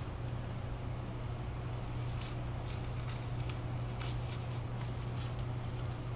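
Light rustling and clicking of parts and packaging being handled, scattered through the second half, over a steady low hum.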